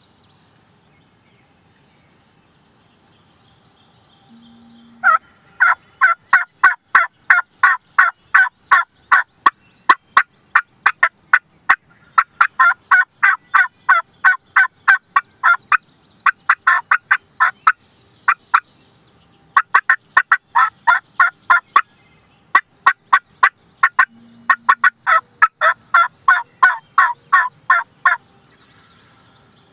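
Hand-worked turkey call sounding long series of sharp, evenly spaced yelping notes, about four a second. Several runs start about five seconds in and stop shortly before the end. It is a hunter calling to draw a gobbler in.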